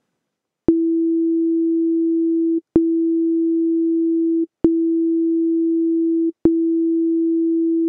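Ableton Operator software synthesizer playing a pure sine-tone note four times, each starting with a sharp click and a brief peak, then holding steady for nearly two seconds before cutting off quickly. The sustain level has been turned up, so the held tone stays almost as loud as the initial click.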